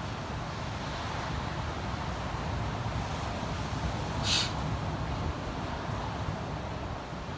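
Wind rumbling on the microphone over the steady wash of breaking surf, with a brief hissing bird call about four seconds in.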